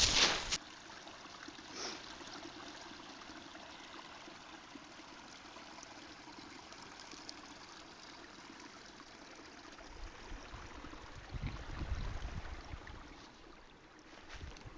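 Steady trickling and rushing of a small woodland stream. Between about ten and thirteen seconds in, a few louder low thumps and rumbles sit on top of it.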